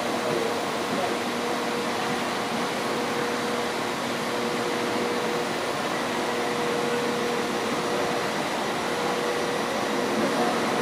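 Avanti West Coast Class 390 Pendolino electric train running slowly toward the platform, giving a steady electrical hum with a held mid-pitched tone over a wash of rolling noise. The tone fades near the end.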